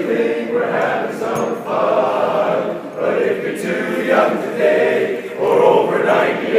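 A chorus of voices singing sustained chords together, the notes changing about once a second.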